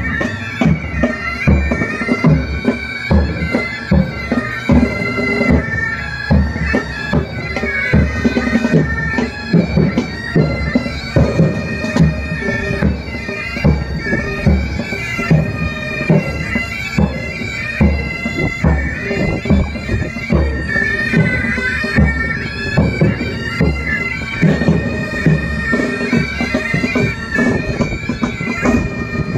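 Military pipe band playing: bagpipes sounding a continuous drone under the chanter melody, with a bass drum beating steadily beneath.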